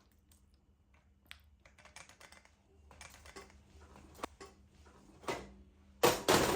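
Quiet scattered clicks and light taps, then a sudden much louder dense noise starting right at the end.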